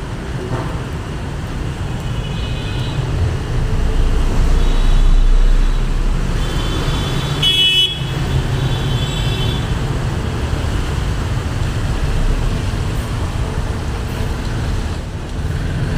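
Busy street traffic on a wet road: cars and motorbikes running past with a steady low rumble, and vehicle horns honking several times, loudest about halfway through.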